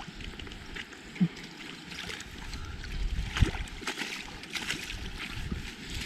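Water sloshing and lapping, with scattered small knocks and clicks; one sharper knock comes about three and a half seconds in.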